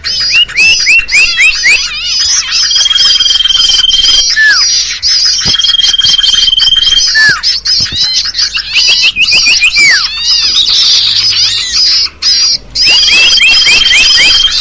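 Bird-lure recording for sirtu and cipoh (common iora): a busy chatter of many small birds' high chirps and quick falling notes. Three times a long, level whistle is held and then ends in a short falling note.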